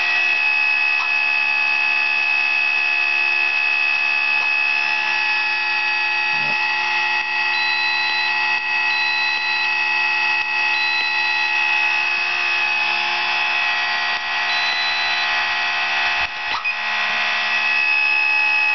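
XK A600 RC plane's brushless electric motor running steadily with the propeller spinning, a steady high whine. A few short high beeps sound partway through.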